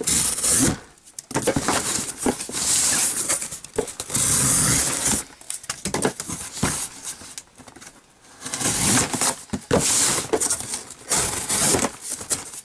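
Utility knife slicing through the tape and cardboard on top of a sealed corrugated shipping case, in several scraping strokes of a second or two each with short pauses between.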